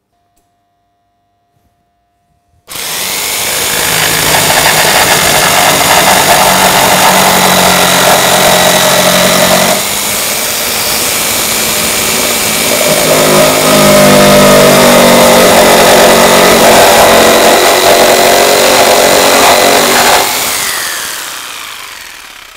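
Electric jigsaw cutting a curve through a softwood board, starting suddenly about three seconds in and running loud and steady, its note changing about ten seconds in as the cut goes on. Switched off near the end, it runs down with a falling whine.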